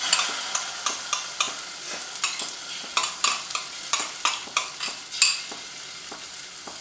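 Ground masala paste sizzling as it goes into hot oil in a pot, with a metal spoon clicking and scraping against the bowl and the pot. The sizzle slowly dies down as the paste settles.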